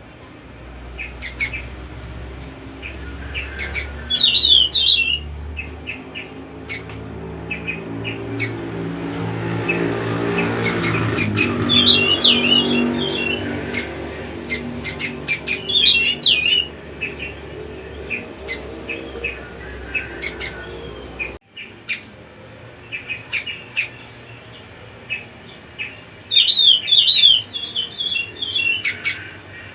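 Cucak rumbai singing in several short bursts of quick chirping phrases, a few seconds apart. A low hum runs underneath, swells in the middle and cuts off abruptly about two-thirds of the way through.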